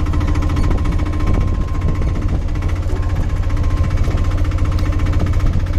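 Vehicle engine running steadily while driving along, heard from on board the moving vehicle.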